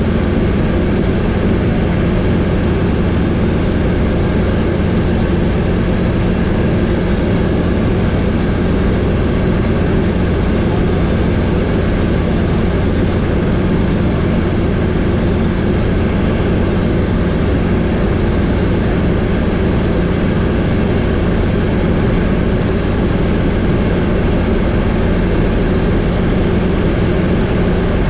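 Helicopter in steady flight, its engine and rotor making a loud, unbroken drone.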